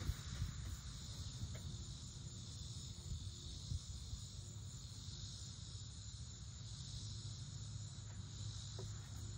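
Steady, high insect chorus, crickets chirring, over a low rumble.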